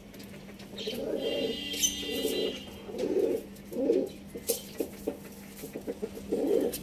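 Chickens giving soft, low clucks, about five of them a second or so apart, with a thin higher call early on and short clicks of beaks pecking in the straw between the clucks.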